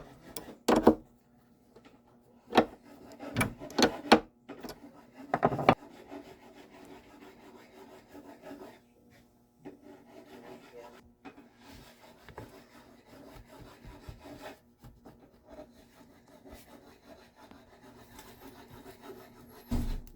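Hand abrading of guitar wood, likely filing or sanding during the repair. There are several short, sharp strokes in the first six seconds, then steady, quieter rubbing, with one louder stroke near the end.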